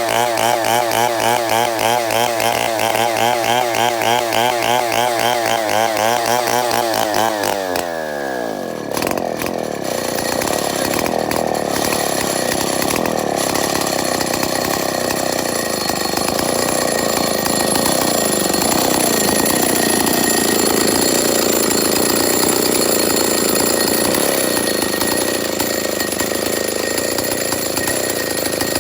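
Chainsaw engine running at high speed with a wavering pitch. About eight seconds in its pitch falls sharply, and a dense, steady rasp follows for the rest.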